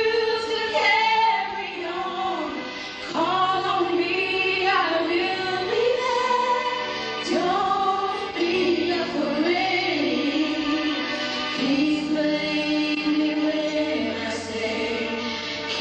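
A choir singing together, with some notes held for a second or more.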